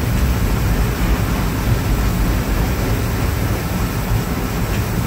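Steady, low rushing noise of the gas-fired furnaces and glory hole burners and their blowers in a glassblowing shop, running without a break.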